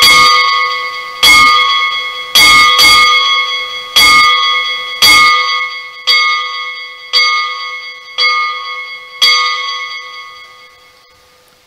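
A single bell struck about nine times at roughly one stroke a second, each stroke ringing on into the next. The later strokes are softer, and the ring fades away after the last. It is rung to open the evening prayer.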